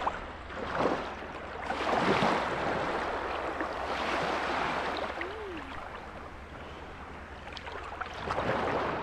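Small waves washing over sand in shallow water at the shoreline, rising and falling in several surges.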